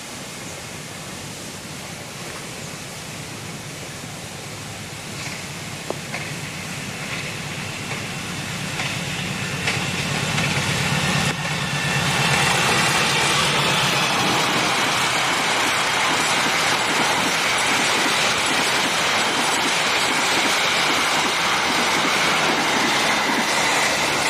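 Diesel-hauled passenger train approaching and passing at speed. The locomotive's engine drone grows louder over the first half. About twelve seconds in, the loud, steady rolling noise of the coaches' wheels on the rails takes over.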